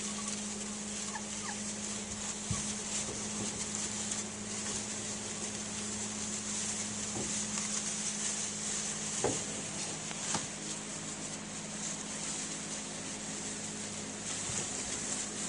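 Bedlington terrier puppies giving a few brief, faint squeaks over a steady low hum and hiss.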